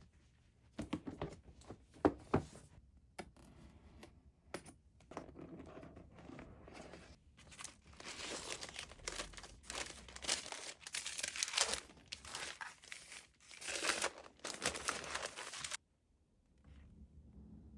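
Keyboard packaging being unboxed: paper and plastic crinkling and tearing, with a few sharp knocks, stopping suddenly near the end.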